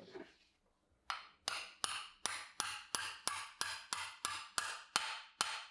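A rapid, even series of about a dozen sharp clicks, a little under three a second, from the shaft and housing of a manual knife sharpener being turned by hand. The clicks start about a second in and stop abruptly near the end.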